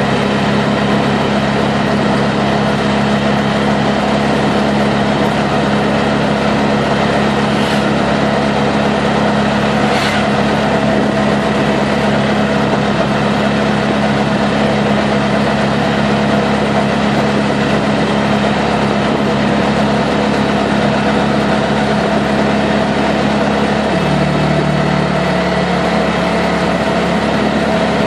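A CNG auto-rickshaw's small engine running steadily under way, heard from inside the three-wheeler's cabin with road noise around it. Its engine note changes about three-quarters of the way through.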